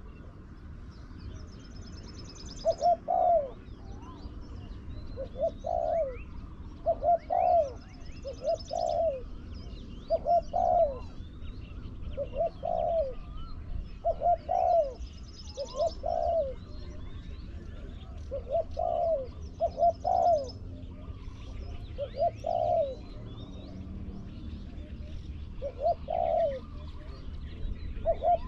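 Spotted doves cooing over and over, a short two-part coo phrase every second or two. Small birds chirp and trill faintly higher up, with a few short trills standing out.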